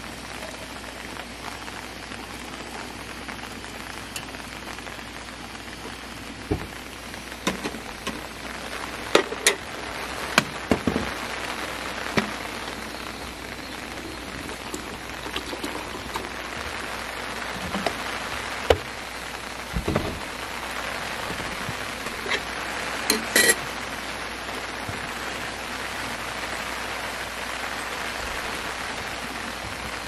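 Steady rain falling, with scattered clinks and knocks through the middle from a stainless steel pot and a glass mug being handled at a camp stove.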